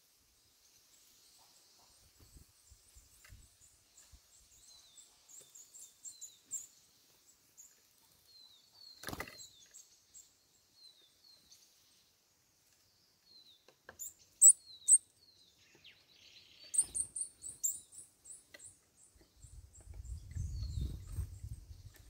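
Small songbirds at a feeder, great tits and Eurasian nuthatches, giving short high chirps scattered throughout, with a few loud ones about two-thirds through followed by a quick series of repeated high notes. A single sharp knock about nine seconds in, and a low rumble near the end.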